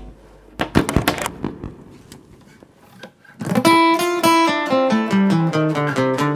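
Thin-bodied half-acoustic guitar played as a lead line. A few strummed strikes come about a second in, then a run of single plucked notes steps down in pitch.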